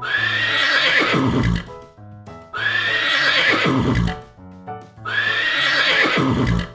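A horse neighing three times, each whinny about a second and a half long, over light background music with steady piano-like notes between the calls.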